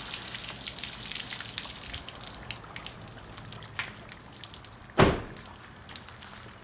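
Free-flowing water from a rack-mounted Road Shower's hose with the nozzle removed, splashing on the side of an SUV and the ground, fading away after about two and a half seconds into scattered drips. About five seconds in comes one sharp thump, the loudest sound.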